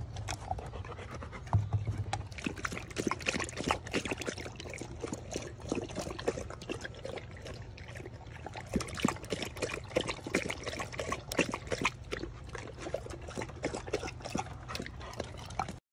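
Golden retrievers lapping water from stainless steel bowls: quick, irregular wet laps and splashes.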